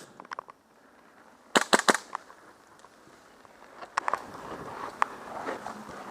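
Airsoft guns firing: a quick string of about four sharp cracks about one and a half seconds in, with a few fainter shots just before and single shots later on.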